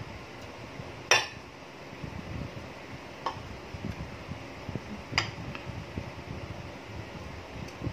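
A spoon and fork clinking against a plate while eating pansit noodles: three or four sharp clinks, the first, about a second in, the loudest.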